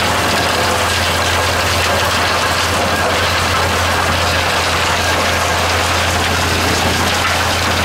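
Gold-mining trommel running: a loud, steady mechanical din from its drive and the big steel drum turning on its ring gear, with a constant low hum underneath.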